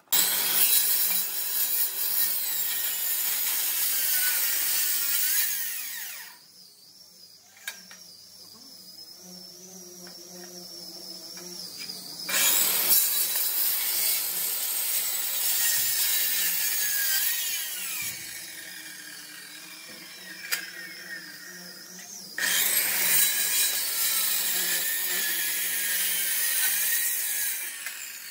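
A power tool working wood, loud in three long passes with quieter running in between.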